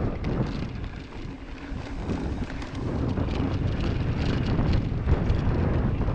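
Wind rumbling on the microphone of a mountain bike's ride-along camera, with mountain bike tyres rolling on a dirt trail and short clicks and rattles from the bike over bumps.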